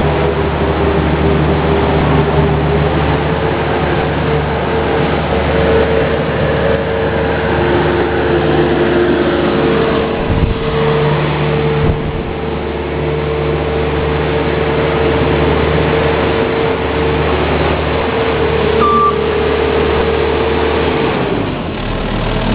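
Bobcat S205 skid-steer loader's diesel engine running hard with a steady whine over the engine note, as the loader works a feed plow. Near the end the whine stops and the engine drops back.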